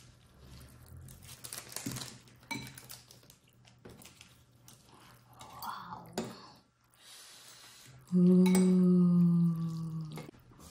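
Spoons and forks clinking lightly against ceramic soup bowls now and then during a meal of meatball soup with noodles. Near the end a person hums a long, steady 'mmm' of enjoyment for about two seconds while tasting.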